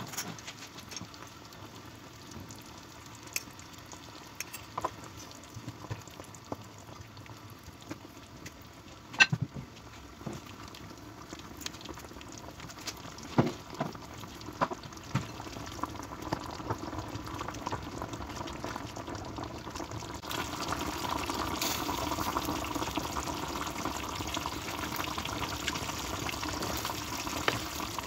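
Chicken curry sauce simmering in a frying pan, a steady bubbling with scattered sharp pops and clicks. The bubbling grows louder about twenty seconds in.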